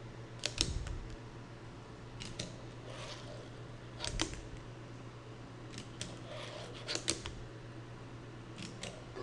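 A fingerboard being popped, grinded along a ledge and landed on a desk: about six clusters of light clicks and clacks from the small board's deck and wheels, often in pairs, a second or two apart.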